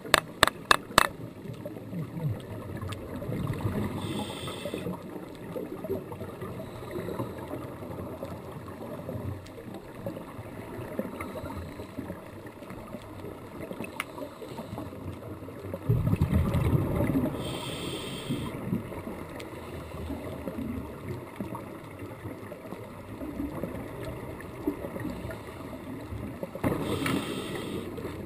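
Underwater recording: a steady muffled rumble of water with scuba regulator exhaust bubbles gurgling in three bursts, the longest and loudest about two thirds of the way through. A short run of sharp, evenly spaced clicks right at the start.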